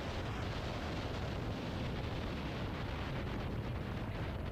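Wind buffeting the microphone of a camera on a moving dirt bike, a steady low rumble, with the bike's engine running underneath.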